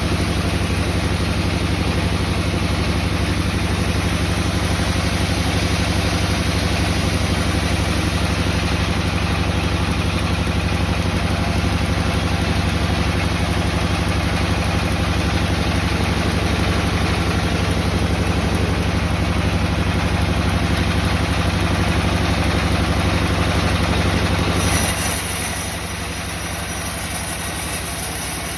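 Woodworking machinery running steadily with a constant low hum. About 25 s in, the sound drops to a quieter, steady level.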